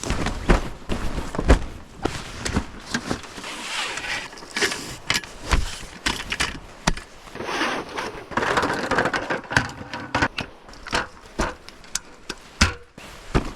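Camping gear being handled as a campsite is set up: a run of irregular knocks and clatters with bursts of rustling.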